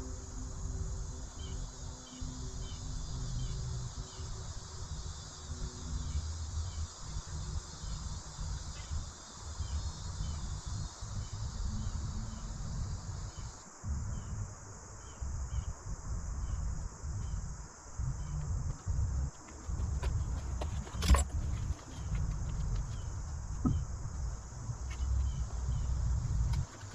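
Insects chirping in an even rhythm, about two chirps a second, over wind buffeting the microphone. A sharp click comes once, about 21 seconds in.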